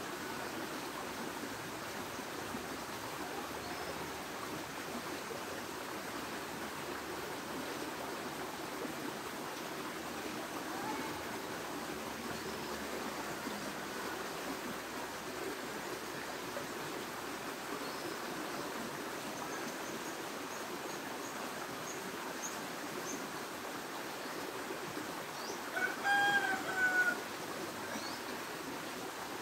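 Steady rushing background noise with faint, scattered high bird chirps. Near the end comes a brief, louder call of a few stacked notes.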